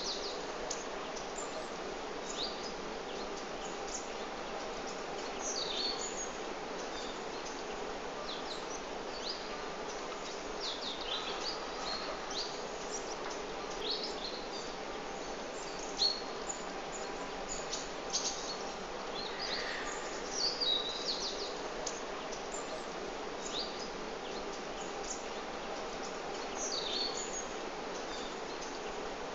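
Small birds chirping and tweeting in short, scattered calls throughout, over a steady background hum.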